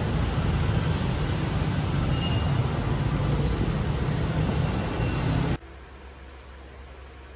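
Car on the move: a steady low rumble of road and engine noise that cuts off abruptly about five and a half seconds in, leaving only a faint hiss.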